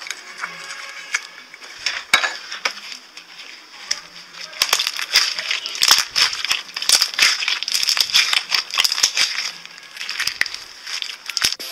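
Blue slime being squeezed and kneaded by hand, making rapid crackling and popping clicks. The clicks are sparse at first, grow dense about halfway through, then thin out again.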